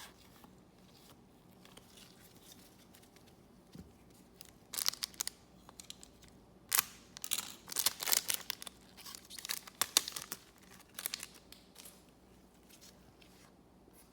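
Wrapper of a Garbage Pail Kids trading card pack being torn open and crinkled, a run of sharp crackles from about five seconds in to about eleven seconds in.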